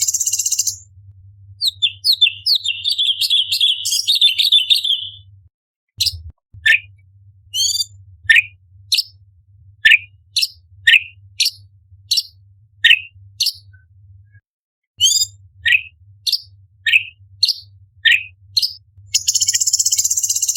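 Orange-bellied leafbird singing: a fast, chattering warble, then a long run of sharp, high notes that each drop steeply in pitch, about one every half second to second. A dense, buzzy chatter is heard briefly at the start and again near the end, over a faint low hum.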